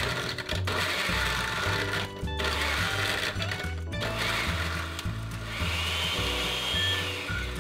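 Oster countertop blender with a glass jar running, crushing ice cubes and frozen berries into a smoothie, with a brief break about two seconds in. Background music with a bass line plays underneath.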